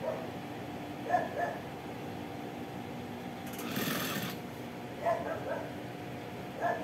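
Industrial sewing machine humming steadily and stitching briefly for about a second midway. A dog barks several times in short yelps, mostly in pairs.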